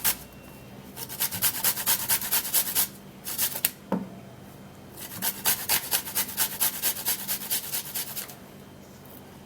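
Fresh ginger root being rubbed on a hand grater: quick rasping strokes, about five a second, in three runs with short pauses, stopping shortly before the end.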